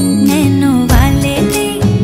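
Background music: a Hindi film-style song with a wavering sung melody over sustained notes and a low bass beat.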